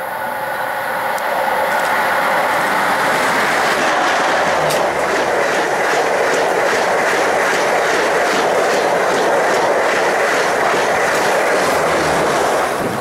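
High-speed passenger train hauled by an EP20 electric locomotive passing close by at speed. A loud rush of wheels and air builds as the locomotive arrives, with a steady clicking of wheels over rail joints about twice a second. The noise falls away near the end as the last coach goes by.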